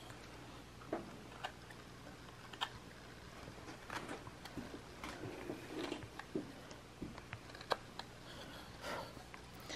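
Carving knife whittling basswood by hand: faint, irregular short slicing cuts and scrapes with sharp little snicks as chips come off, a denser run of cuts in the middle and another near the end.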